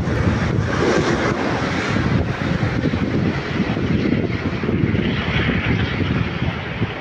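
Airbus A380 on landing approach, its four jet engines giving a steady, dense rush of noise that eases slightly near the end.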